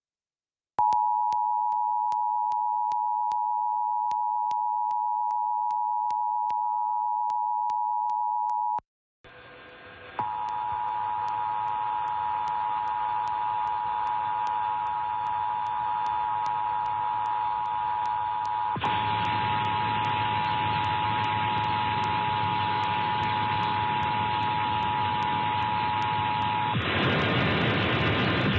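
Emergency Alert System attention signal: the steady two-tone alert (853 and 960 Hz) sounds for about eight seconds, cuts out briefly, then sounds again for about sixteen seconds over a loud hiss, and stops near the end, leaving the hiss.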